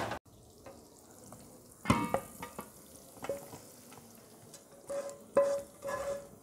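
Spoon clacking and scraping against a metal pan as a hot peanut and caramelised sugar chikki mixture is stirred and scraped out onto a steel plate. The clacks are scattered, several carry a short metallic ring, and they bunch together near the end.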